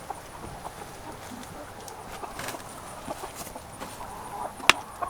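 Light knocks and clatter from a chicken feeder being handled, with one sharp click near the end.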